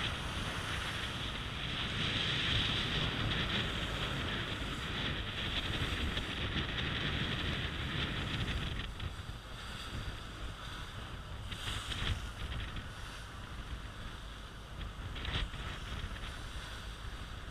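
Wind buffeting the microphone and water rushing past a motor fishing boat under way, over a low engine rumble. There are two brief knocks in the second half.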